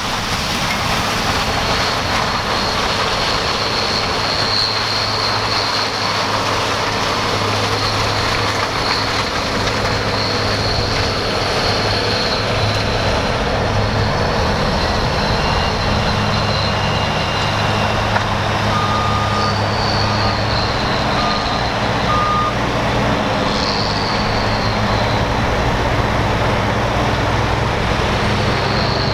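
Heavy diesel harvest machinery running steadily under load, a dense machine noise with a low hum and a steady high whine. Four short beeps sound about two-thirds of the way through.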